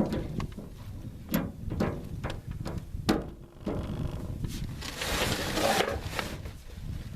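Handling noises: several scattered knocks and clicks, the sharpest about three seconds in, then about a second of rustling noise near the end.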